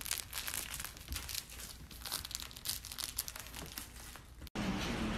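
Golden retriever puppy biting and shaking a plush toy: a rapid, irregular run of crackles and rustles that stops suddenly about four and a half seconds in.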